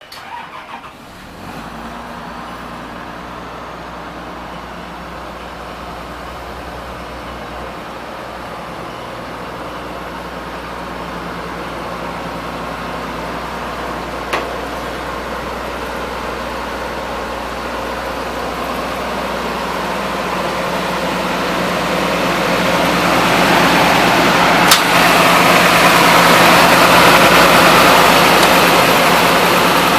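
Komatsu PC200-8MO excavator's diesel engine running steadily, growing gradually louder through the half-minute. Two short sharp clicks stand out, about halfway and near the end.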